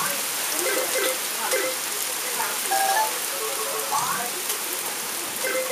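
Heavy thunderstorm rain pouring steadily, a continuous hiss of rain falling on the yard, roofs and trees. Faint short pitched sounds come and go underneath it.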